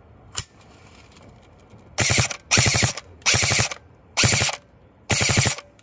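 Double Bell BY-012 AK-pattern airsoft electric gun (AEG) firing on full auto: a single click near the start, then five short bursts of rapid shots, each about half a second long, from its cycling gearbox.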